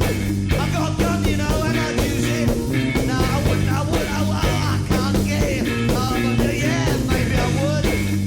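Live rock band playing a song, with a vocal line over sustained bass and a steady drum beat.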